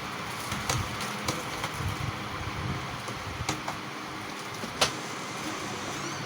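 Steady background hiss and hum with a few sharp clicks scattered through it, the loudest nearly five seconds in.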